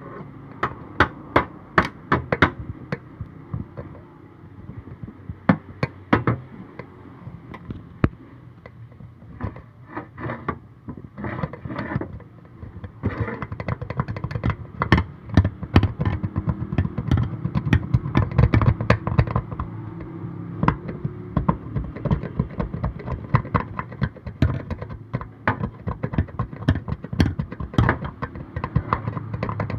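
Many sharp, irregular clicks and taps over a steady low hum; the clicks come thicker and the hum grows louder from about halfway through.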